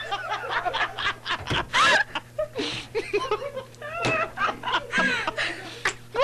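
Radio hosts laughing on air in the studio, in a string of short bursts of laughter with few or no words.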